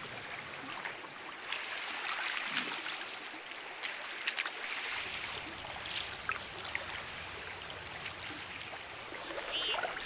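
River water running and trickling around broken, drifting ice during the spring thaw, a steady watery hiss with scattered light clicks.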